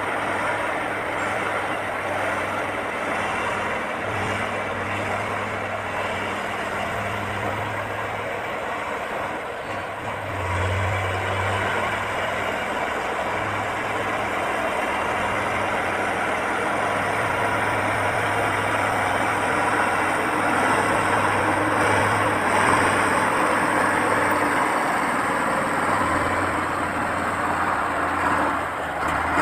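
Diesel engine of heavy earthmoving machinery running steadily at work, with a low hum that swells and eases now and then.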